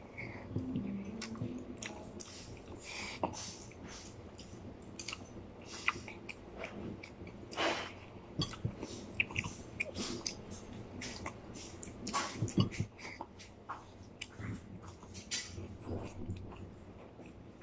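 Close-up chewing of chicken eaten by hand: irregular mouth clicks and smacks throughout, with a brief low hum about half a second in.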